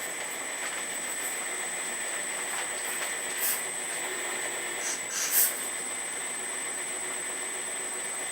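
Earth Digger 4200XL RC hydraulic excavator running, its hydraulic pump giving a steady high whine over a hiss, with a few short sharp noises, the loudest about five seconds in.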